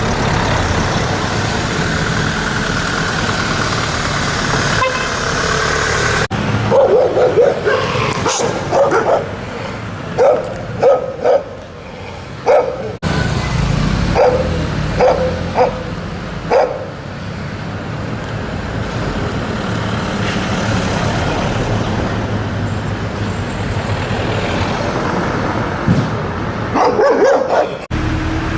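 Stray dogs barking in a run of short, loud barks, with another brief burst of barking near the end, over steady road traffic noise.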